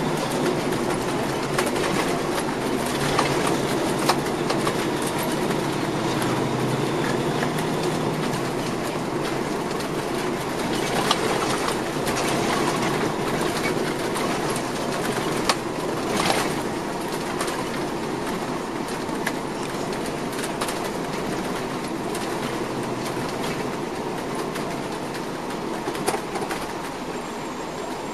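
Cabin noise of a 2004 MCI D4500CL coach under way: a steady rumble from its Caterpillar C13 diesel engine and the road, with a few sharp rattles and knocks from the cabin.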